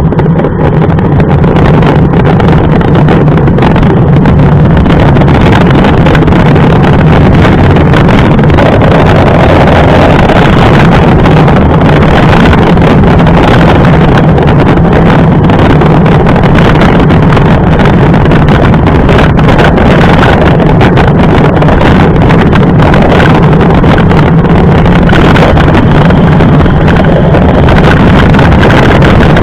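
Loud, steady wind rumble buffeting a camera's microphone while riding a mountain bike, with no break throughout.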